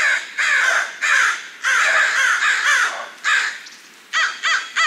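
Birds calling outdoors: a string of loud, harsh, caw-like calls, then a quicker run of short, clear notes about four seconds in.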